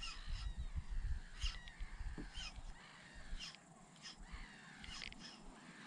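Birds calling in short calls about once a second, over a low rumble from a spinning reel being wound.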